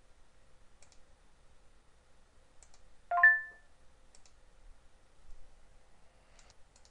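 A short electronic alert chime about three seconds in, in three stacked tones, from the handheld's system warning sound as a confirmation dialog pops up. A few faint mouse clicks come before and after it.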